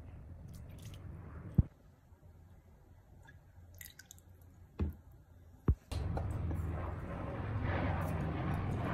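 Soy sauce being measured with a plastic spoon and tipped into a glass mixing bowl: small wet drips and squishes. There is a sharp knock about a second and a half in and two lighter knocks about five seconds in. A steady low hum takes over near the end.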